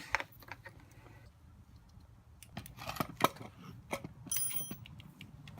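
Scattered metallic clicks and clinks of tools and parts being handled, with a short ringing clink a little past four seconds in.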